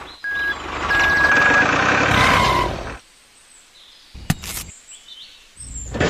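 An engine running, with two short high-pitched beeps over it, stops abruptly about three seconds in. A sharp click follows about a second later, then the running sound starts again near the end.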